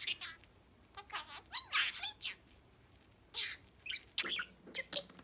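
Pet budgerigar chattering: irregular runs of short chirps and scratchy warbling notes, busiest about a second in and again near the end.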